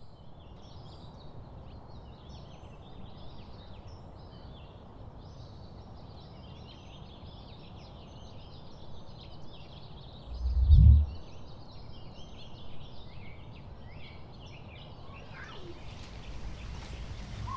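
Many small birds chirping and twittering at once in a dense, overlapping chorus over a low steady rumble, with one brief low thud about ten seconds in.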